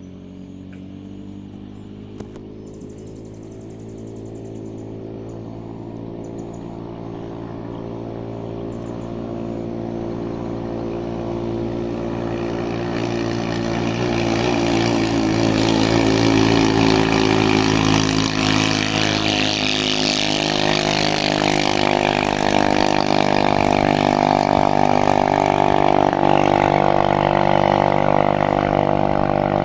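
Racing boat's modified Yasuka 500 four-stroke engine (PWK 35 carburettor, custom camshaft) running flat out at high revs on the river. Its steady engine note grows louder as the boat approaches over the first fifteen seconds or so, then stays loud as it runs close by.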